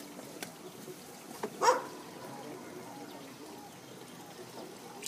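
A dog gives one short, sharp bark that drops in pitch, about a second and a half in. Faint lapping of water from a hand in the lake runs underneath.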